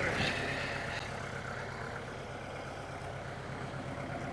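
Tractor engine running steadily at low revs with an even low throb, with a brief rattle at the start and slightly quieter after about a second.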